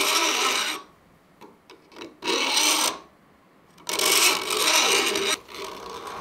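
Flat steel file drawn along the tops of a hand saw's teeth in three strokes, the last one longer: jointing the teeth down to one uniform height.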